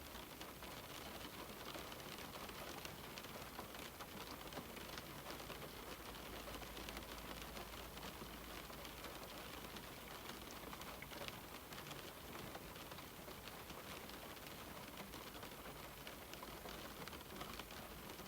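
Steady rain falling on a window, a soft even hiss with many small drop taps.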